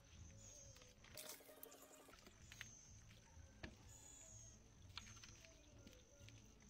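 Faint outdoor ambience with insects calling in high, thin stretches of about a second each. A faint distant voice comes about a second in, and a single sharp click falls near the middle.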